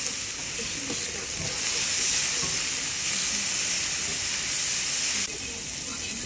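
A steady hissing noise that grows louder after about a second and a half and drops off suddenly near the end.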